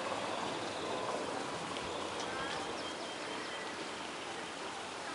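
Steady outdoor background noise with a faint murmur of distant voices, and a few short high chirps about two seconds in.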